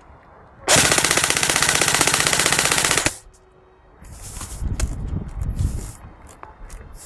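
Airsoft gun firing one long full-automatic burst of about two and a half seconds, followed by rustling and handling noise.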